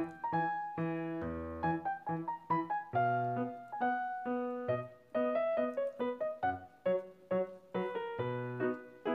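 Background piano music: a steady run of single notes and chords, each struck and left to fade.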